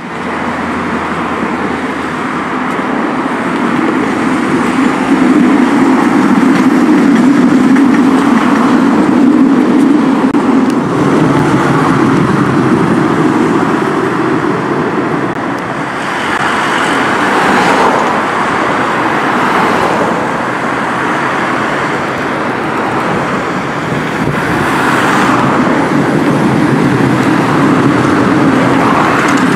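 Street traffic beside a low-floor articulated tram running along its track: a steady low hum with road noise from passing cars. Vehicles swish past about halfway through and again near the end.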